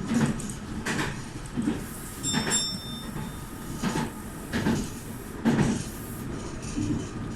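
Meitetsu 2000-series electric train running, with a steady low rumble and irregular clunks as the wheels cross track joints. A brief high ringing tone sounds about two and a half seconds in.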